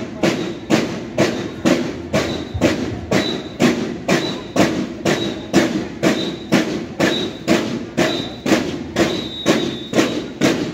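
Parade drum corps drums beating a steady march cadence, about two strokes a second.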